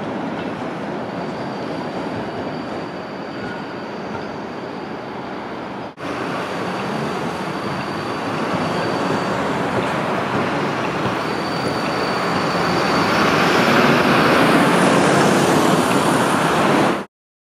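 ULF low-floor electric tram running along street track among road traffic, with a faint steady high whine over the rolling noise. After a break about six seconds in, a tram draws near and grows louder as it passes close, and the sound cuts off suddenly just before the end.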